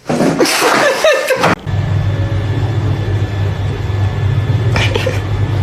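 A loud, noisy burst for the first second and a half, then a steady low mechanical hum with a faint high whine that stops suddenly near the end.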